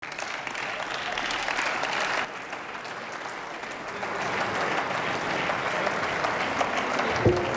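Members of parliament applauding: steady clapping from the benches, dipping briefly a couple of seconds in, with one thump near the end.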